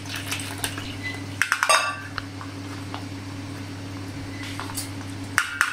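A spoon scraping and tapping against a plastic strainer over a steel bowl as blended mint and coriander pulp is pressed through it. There is a cluster of clinks about one and a half seconds in and another at the end, over a steady low hum.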